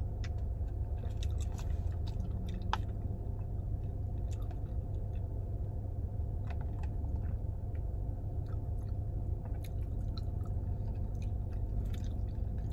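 Close-miked chewing of chewy tapioca boba pearls from bubble tea: many small, scattered, wet mouth clicks over a steady low hum.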